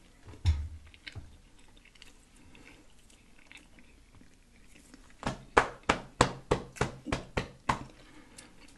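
Close-miked chewing with lip smacking. It is mostly quiet at first, then near the end comes a quick run of about nine loud smacks, roughly three a second.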